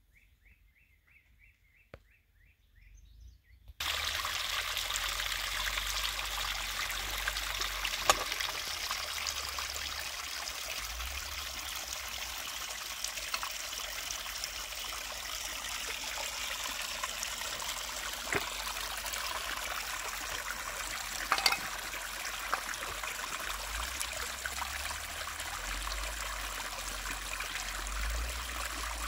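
Water trickling over rocks in a small rocky pool: a steady trickling that begins suddenly about four seconds in, with a few sharp clicks. Before it, a bird chirps a quick run of high notes.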